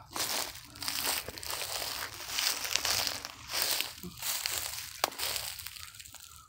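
Footsteps through grass and dry leaves: a run of crunching, rustling steps that fades near the end.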